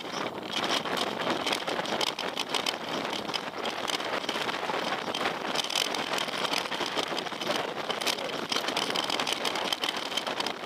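Mountain bike riding over a rocky trail: tyres rolling over stones and gravel with a steady rushing noise and many small rattles and knocks from the bike.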